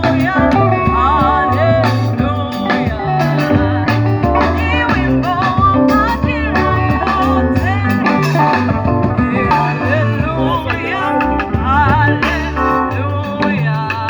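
Gospel band playing a song live during a sound check, with singing over guitar and a moving bass line.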